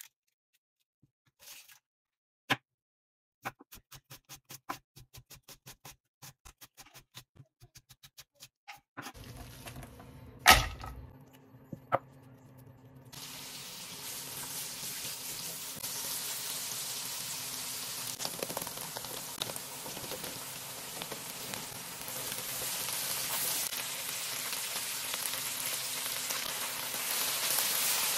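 A chef's knife slicing onion on a wooden chopping board, a few single cuts and then a quick even run of about four strokes a second. About ten seconds in comes one loud thump, then a steady sizzle of sliced onions and then okra frying in oil in a wok, stirred with a wooden spatula.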